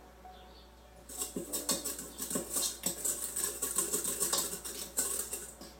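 A utensil stirs and scrapes dry flour mixture around a stainless steel mixing bowl, giving rapid irregular scratchy scrapes and light clinks against the metal. It starts about a second in and stops just before the end.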